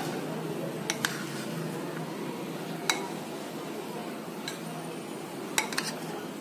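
Metal spoon stirring a moist sprouted mung bean salad in a bowl, with a handful of sharp clinks as the spoon hits the bowl: two about a second in, one near three seconds, and a quick cluster of three near the end. A steady low hum runs underneath.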